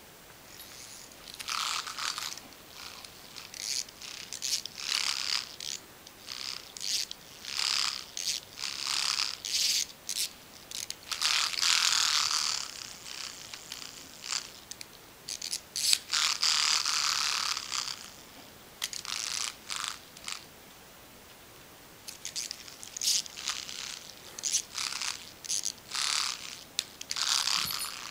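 Pull-string vibrating ladybug cat toy buzzing and rattling in irregular bursts as its trembling mechanism runs down, stopping and starting as a dog paws and mouths it. About a dozen bursts, some brief, some lasting a second or two.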